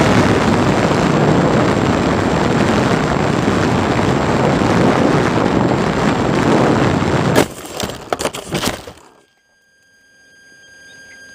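Onboard recording of a Parkzone T-28D Trojan RC plane in flight: a loud steady rush of electric motor, propeller and wind, then about seven seconds in a sharp crack and a quick run of snapping, crashing hits as the plane strikes a tree. The noise then drops away almost to silence, with faint steady high tones.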